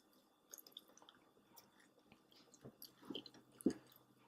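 Quiet chewing of chicken nuggets: faint wet smacks and small clicks of mouths eating, a couple of louder ones a little past three seconds in.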